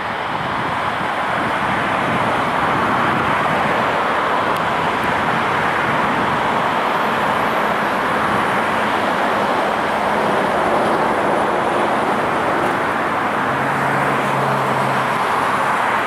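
Boeing 737-8 MAX's CFM LEAP-1B turbofan engines at takeoff thrust: a loud, steady jet roar through the takeoff roll, with the airliner lifting off near the end.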